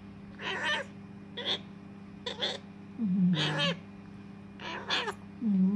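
African grey parrot chick giving short begging calls, roughly one a second, while being syringe-fed hand-rearing formula.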